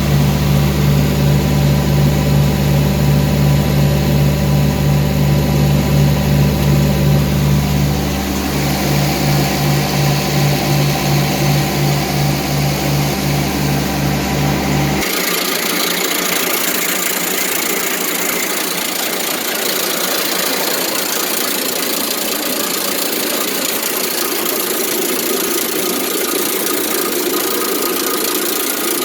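An engine running steadily at idle with a regular pulsing beat. About halfway through, the deep hum cuts off abruptly and a thinner, hissier steady noise takes over.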